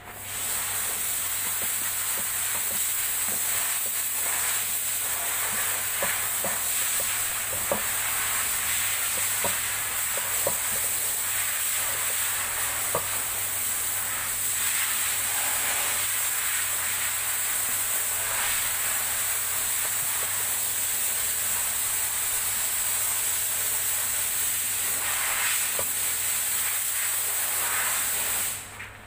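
A loud, steady hiss like static that starts and stops abruptly, with a few faint clicks under it.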